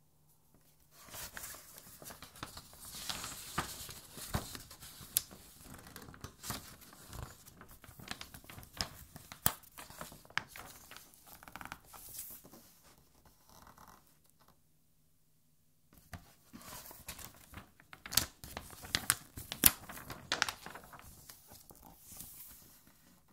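Pages of a large 1982 hardcover art album being turned and smoothed flat by hand: paper rustling with sharp crackles and snaps. It comes in two bouts, with a pause of about two seconds in the middle, and the loudest snaps fall in the second bout.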